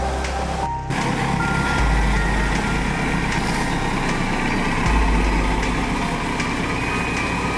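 Diesel engines of road-paving machinery running, led by a tandem steel-drum road roller compacting fresh asphalt; a deep low rumble swells a couple of times. The sound drops out briefly just before a second in.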